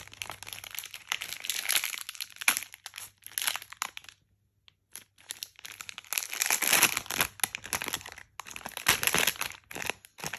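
Crinkly foil wrapping paper being crumpled and torn by a capuchin monkey's hands, in irregular crackling bursts with a short pause about halfway through.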